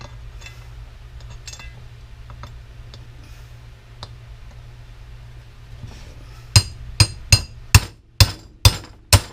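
Hammer blows on metal, knocking a bearing out of a cast aluminum housing: seven sharp, ringing strikes about two to three a second in the last three seconds. Before them, faint clicks of parts being handled over a steady low hum.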